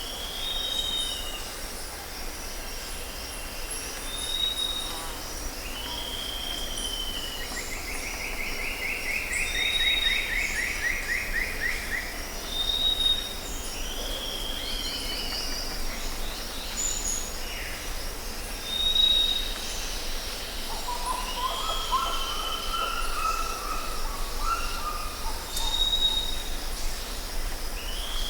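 Jungle ambience: a steady high insect drone under many birds calling. A short high whistle repeats every few seconds, with falling whistled notes, a rapid trill about a third of the way in, and lower warbling calls past the middle.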